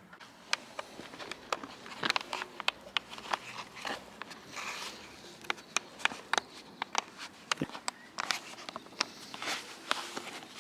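Hands handling plastic wheel arch extensions and a rubber edging strip: irregular sharp clicks and taps, with short rustles.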